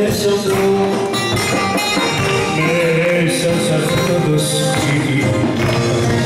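Live Greek dance music: a man singing into a microphone over a backing band.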